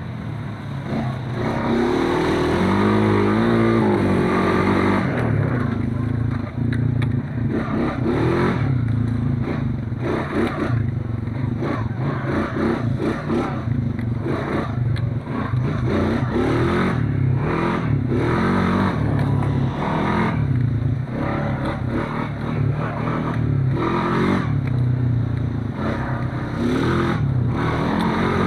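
Honda Foreman 520 ATV's single-cylinder engine running under way, its pitch rising and falling with the throttle, with a clear climb and drop about two to four seconds in and brief let-offs later on.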